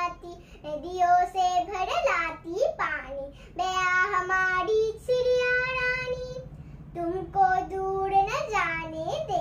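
A young girl singing a Hindi children's poem alone, in held, sing-song notes broken by short pauses.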